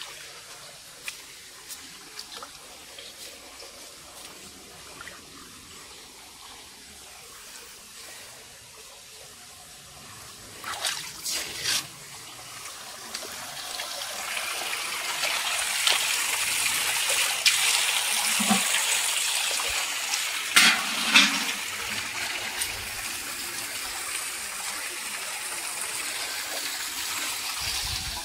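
Spring water pouring from a stone spout into a stone trough: a faint trickle at first, growing into a louder, steady splashing from about halfway through. A few sharp clicks around the middle.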